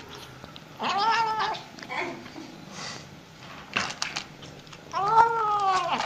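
Cat meowing while eating: two drawn-out calls, one about a second in and a longer one near the end, with a few short clicks between them.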